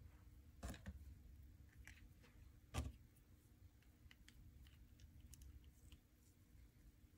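Near silence with faint handling noise: a few soft clicks and taps as a bead is threaded onto yarn with a needle, one louder knock just under three seconds in.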